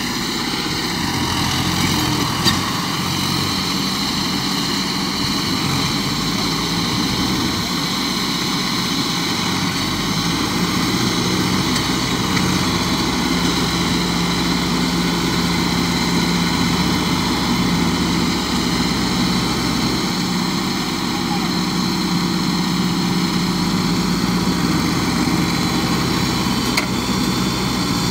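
Massey Ferguson 241 tractor's three-cylinder diesel engine running steadily while pulling a heavy load.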